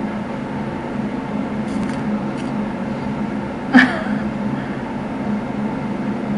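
A steady low machine hum, with one brief vocal sound whose pitch falls quickly about four seconds in.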